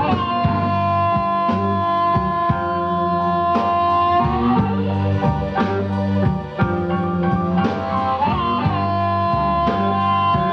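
Live blues band: an amplified harmonica, played cupped against a microphone, holds long two-note chords that bend up into pitch, over electric guitar, bass and drums. The harmonica holds its notes for the first four seconds or so, then again from about eight and a half seconds in.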